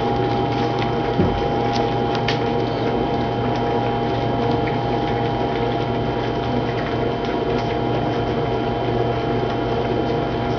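A steady mechanical hum made of several even tones, with faint scattered clicks and taps over it.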